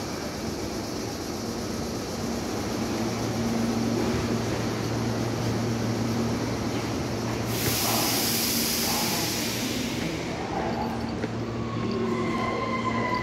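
Meitetsu electric train of 3100 and 3500 series cars at the station, giving a steady low electrical hum. About halfway through a loud hiss of air from its brakes lasts a couple of seconds, and a thin high tone sounds near the end.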